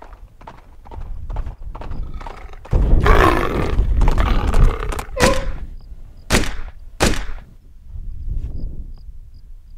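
A couple of seconds of a loud, rough, roar-like noise, then three gunshots from a FAMAS rifle, about a second apart.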